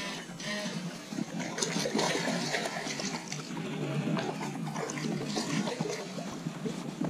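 Largemouth bass splashing at the water surface beside a small boat, a run of irregular splashes and sloshes.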